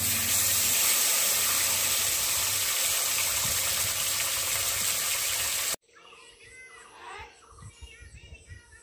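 Pabda fish frying in hot mustard oil in a kadai: a loud, steady sizzle that cuts off abruptly near the end. After it, birds chirp and a high, pulsing insect call goes on.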